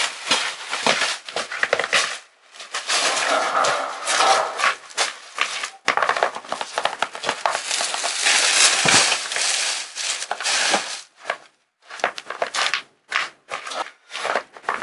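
Black plastic garbage bag rustling and crinkling as it is handled and loaded into a car boot, in irregular crackly spells with short breaks, turning choppier near the end.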